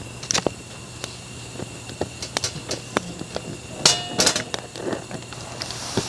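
Wood fire crackling and popping in a small portable steel fire pit, irregular sharp pops, with a louder, briefly ringing metallic clatter about four seconds in.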